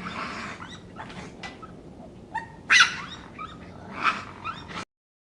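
Raccoon calling: several breathy hisses mixed with short squeaky chirps and whines, which cut off just before the end.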